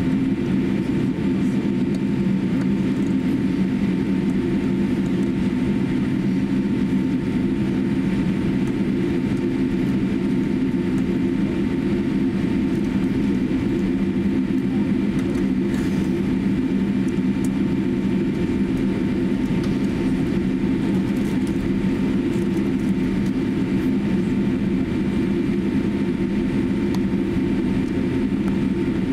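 Steady cabin noise inside a Boeing 787-8 airliner as it taxis: an even low rumble with a faint steady whine above it, unchanging throughout.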